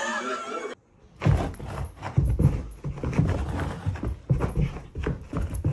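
Soft, irregular low thumps of a dog moving about on a carpeted floor, starting about a second in, over a faint steady high whine.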